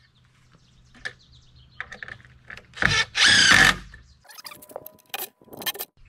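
Cordless drill driving a 1.5-inch screw into a pine 2x4 frame: a loud run of about a second, roughly three seconds in, after a few shorter spurts. Sharp clicks and knocks of the drill and hardware being handled follow.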